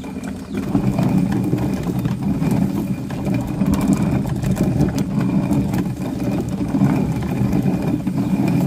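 An engine running steadily, getting louder about a second in and then holding.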